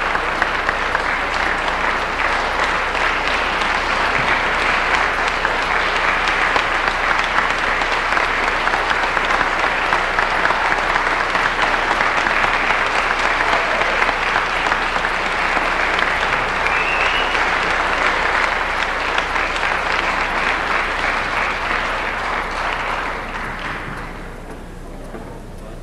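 Concert-hall audience applauding steadily, a dense patter of many hands clapping, dying down near the end.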